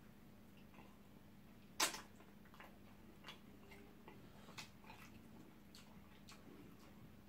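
Faint eating sounds close to the microphone: scattered soft wet clicks and smacks of fingers in slimy okra soup and eba and of chewing mouths, with one sharper smack about two seconds in.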